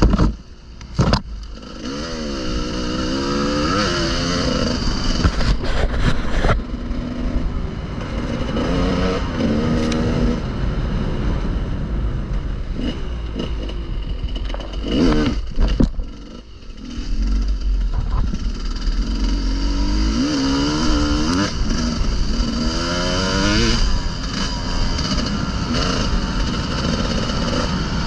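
Enduro motorcycle engine being ridden, its pitch rising and falling again and again as the throttle is opened and closed. There are a few sharp knocks, about a second in, around six seconds and near the middle.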